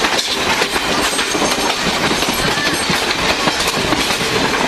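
Passenger train coaches running close alongside, heard from the open doorway of a moving train: a loud, steady rush of wheels and air, with a rapid clatter of wheels on the rails.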